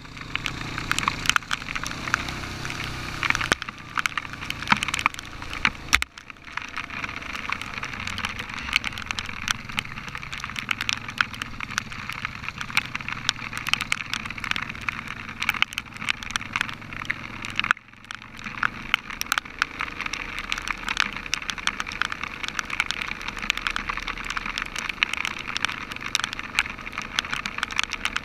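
Heavy rain pelting the helmet-mounted camera: a dense, steady crackle of drops striking close to the microphone. Under it, for the first few seconds, the low running of an ATV engine, which then drops out. The sound breaks off abruptly for an instant a few times.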